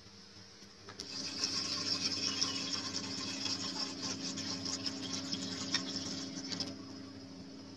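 Water poured in a thin stream into a large aluminium cooking pot, splashing and bubbling on the pot's bottom. The pouring starts about a second in and stops shortly before the end.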